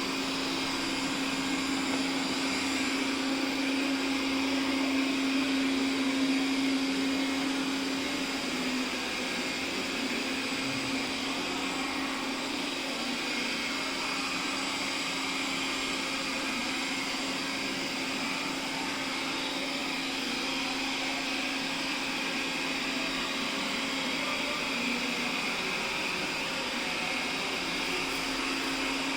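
Robot vacuum cleaner running: a steady motor and suction whir with a low hum, a little louder for the first several seconds.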